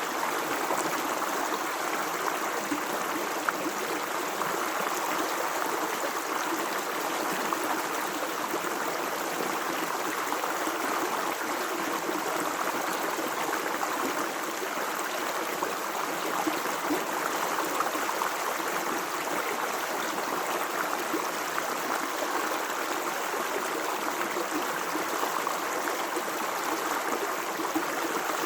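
Stream water running and burbling over rocks: a steady rushing with small splashes and gurgles, unchanging throughout.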